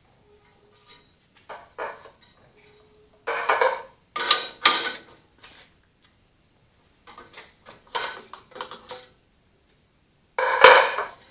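Steel tools and parts being handled at a metal lathe: irregular metallic clanks and clinks, some ringing briefly, loudest in two clusters in the middle and near the end.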